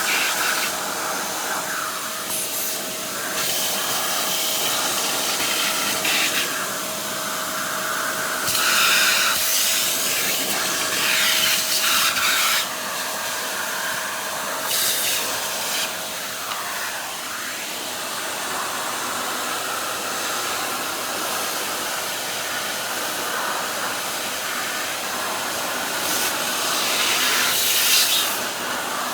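Vacuum cleaner running steadily as it sucks up a cobweb, its hiss brightening several times.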